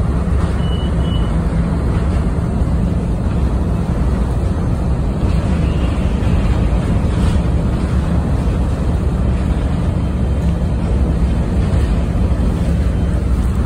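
Steady low rumble of an electric commuter train running at speed, heard from inside the car, with wheel and rail noise. Another train passes close alongside around six seconds in, and two short high beeps sound about half a second in.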